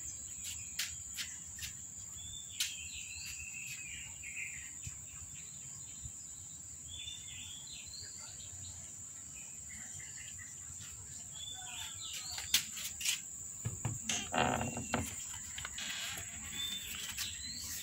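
A steady high-pitched insect drone, like crickets, with small birds chirping now and then. About three quarters of the way through comes a cluster of louder knocks and rustling.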